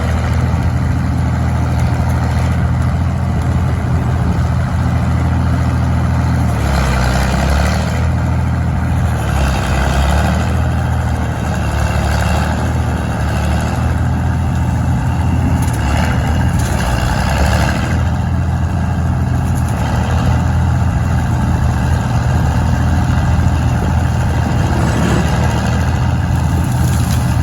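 John Deere 4230 tractor's six-cylinder diesel engine running steadily while powering a tractor-mounted tree saw cutting a honey locust. The engine note dips and shifts a few times, with a rougher noise rising over it.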